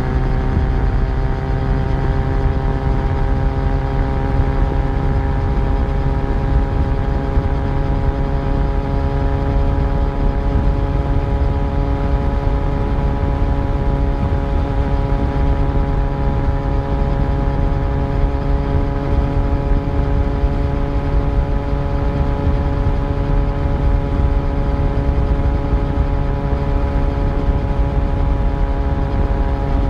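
Yamaha FZ1's inline-four engine running at steady cruising revs, its pitch easing down slightly in the first few seconds and then holding level, over a constant low rumble of wind and road noise.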